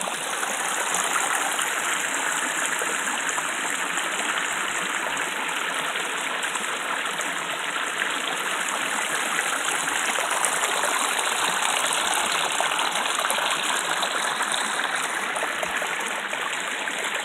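Small mountain creek running over rocks and a little cascade: a steady rush of water.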